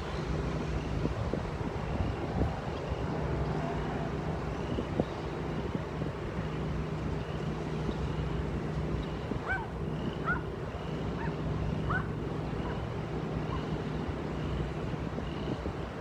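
Wind buffeting the microphone over a steady low engine hum, like a vehicle idling. About two-thirds of the way through come a few short, rising bird chirps.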